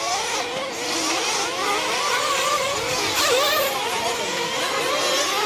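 Small nitro engines of 1/8-scale RC truggies buzzing around the track, their pitch rising and falling as they rev and let off.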